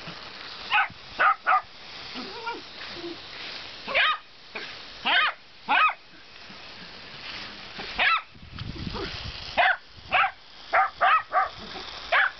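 Shetland sheepdog barks: about a dozen short, sharp, high yaps at irregular intervals, several in quick succession in the second half. Excited play barking at a sprinkler's water jet.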